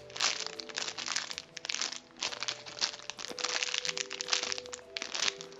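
Plastic packaging crinkling in a string of bursts as a foam squishy toy is squeezed inside its bag.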